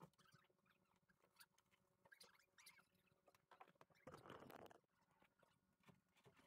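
Near silence with faint small clicks and scrapes of hand work on a car's front bumper, and a short scuffing rustle about four seconds in.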